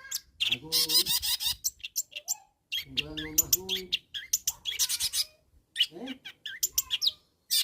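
Long-tailed shrike (cendet) in full, vigorous song: a fast, varied run of short, harsh, high chattering notes, broken by a few lower pitched phrases and brief pauses.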